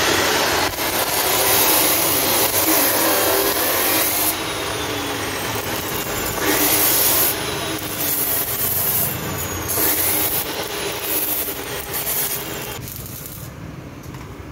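Abrasive chop saw cutting steel flat bar: the disc grinds through the metal with a harsh, high hiss in several separate cuts. The motor's pitch sags under load and recovers between cuts. The sound dies down near the end.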